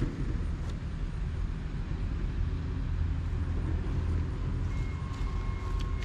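Trailer-mounted generator set running with a steady low drone. A faint steady high tone comes in near the end.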